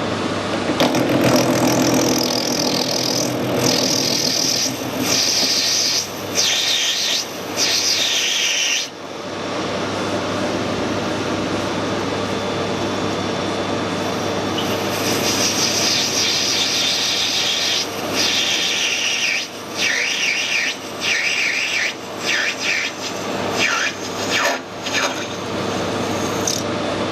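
Metal being cut in a machine shop: high scraping bursts with short gaps between them, in two long stretches, over a steady machine hum.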